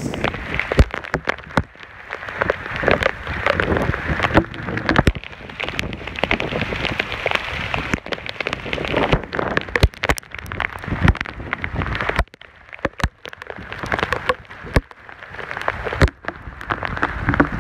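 Heavy, cold rain pelting down in a downpour: a dense hiss of rain with many sharp, close drop strikes, easing off briefly about two-thirds of the way through.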